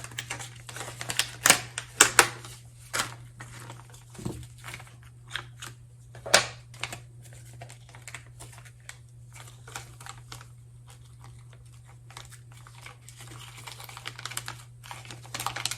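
Small plastic packaging being handled and opened: irregular sharp clicks and crinkling as a model railroad sound decoder is unpacked, busiest in the first few seconds, with one louder click about six seconds in. A steady low hum runs underneath.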